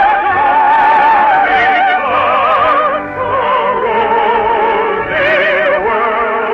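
Operatic singing with a wide vibrato on long held notes, with the pitch moving to a new note every second or so.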